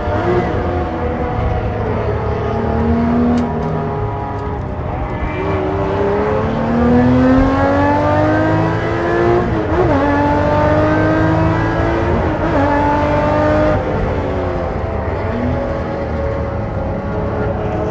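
Porsche race car engine accelerating hard, its pitch climbing through a gear and dropping sharply at quick upshifts, twice in the middle, then running on at lower revs.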